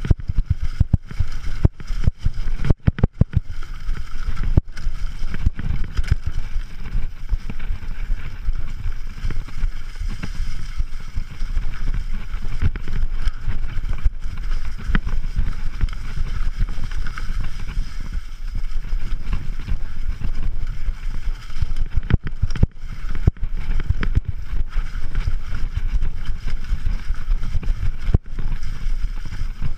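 Mountain bike ridden fast down a rocky, leaf-covered singletrack: wind rumbling on the rider-mounted camera's microphone, with the knocks and rattles of the bike going over rocks and roots.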